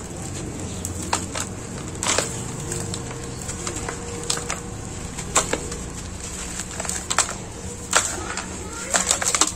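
Dry, gritty, dusty soil mixed with small pebbles being crumbled in a gloved hand, the grains trickling and falling back onto the heap with a steady grainy hiss. Sharp crunches and crackles come now and then, several in quick succession near the end.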